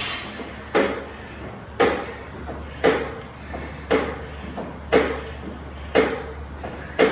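NordicTrack SE7i elliptical trainer making a sharp, regular click about once a second, with fainter ticks in between, over a faint low hum: the clicking noise that is the machine's fault.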